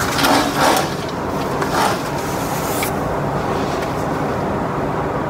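Room fan running with a steady noise, with some rustling over the first two seconds.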